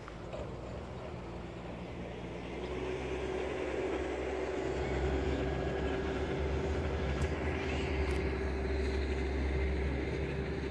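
DB class 628 diesel multiple unit running in the distance, its engine sound growing louder a few seconds in and then holding, with a steady droning tone over a low rumble.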